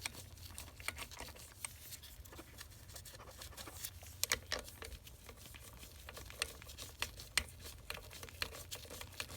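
Scattered light clicks and small rattles of metal engine parts and tools being handled during hands-on engine disassembly, over a faint steady low hum.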